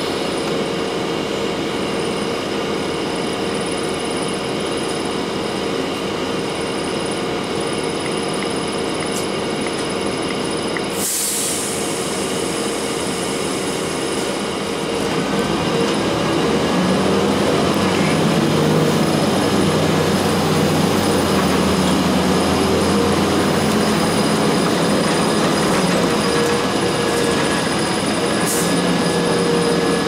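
Blue Bird CS transit bus's Cummins ISC straight-six diesel running, heard from inside the bus, with a short burst of air hiss about 11 seconds in. From about 15 seconds the engine gets louder as the bus pulls away.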